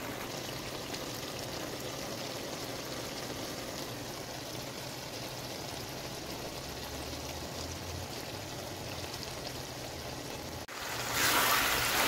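Chopped guar beans (cluster beans) simmering in their own liquid in a wok: a steady bubbling hiss. After an abrupt cut near the end, a louder frying sizzle as the softened beans cook down.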